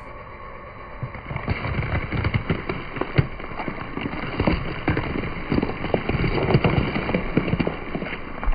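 Green bell peppers cracking and crunching under a slowly rolling car tyre on concrete: a dense run of irregular crackles and pops as the peppers split and flatten.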